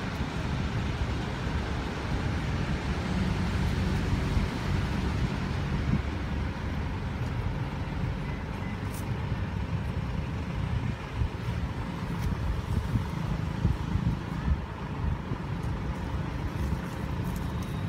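Steady low rumbling background noise that flickers constantly, with no distinct animal calls standing out.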